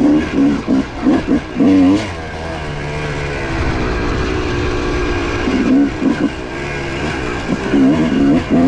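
Yamaha YZ250's single-cylinder two-stroke engine on a dirt bike being ridden, the throttle blipped on and off in quick bursts during the first two seconds and again near the end, with steadier part-throttle running in between.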